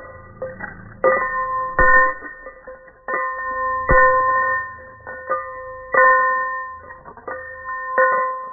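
A bell struck about seven times at uneven intervals, each strike ringing on in several steady tones that fade slowly, slowed down by iPhone slow-motion recording so that it sounds soft and hymn-like.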